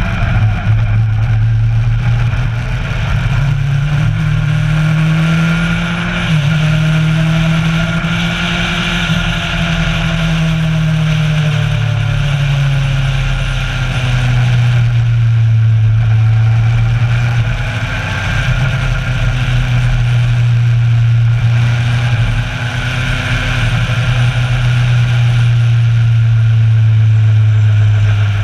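Kawasaki Versys 1000's inline-four engine running under way at a steady cruise, its note rising and falling gently with the throttle, over steady wind and road noise.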